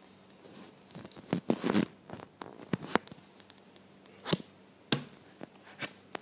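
Irregular plastic clicks, taps and short rustles of Lego parts being handled as the model space shuttle's robotic arm is moved.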